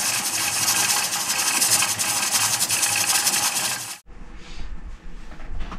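Mirro-Matic pressure canner venting steam in a loud, steady hiss with a fast rattle from its rocking weighted regulator. The hiss cuts off abruptly about four seconds in, leaving a faint low rumble.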